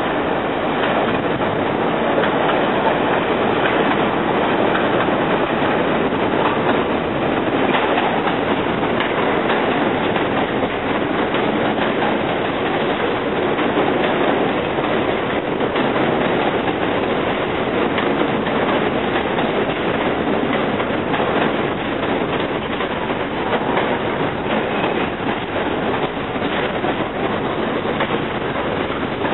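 New York City subway train running along elevated track past the station: a steady rumble of steel wheels on rail, with rapid clacks over the rail joints and a little wheel squeal.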